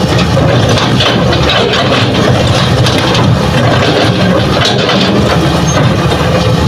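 Hitachi hydraulic excavator's diesel engine running steadily under load while its bucket digs into hard, rocky ground.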